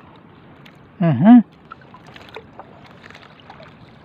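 Water lapping and wind around a small outrigger boat on choppy sea, with scattered light ticks. About a second in, a man makes a brief wordless vocal sound that dips and then rises in pitch, the loudest thing here.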